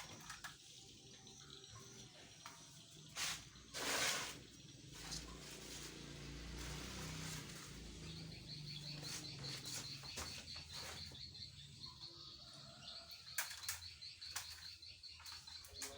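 Outdoor ambience: two brief bumps about three and four seconds in, a low rumble of wind on the microphone, then from about halfway a rapid, steady high chirping.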